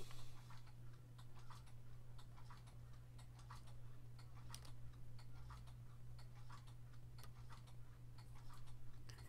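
Faint, regular ticking, about two ticks a second, over a steady low hum.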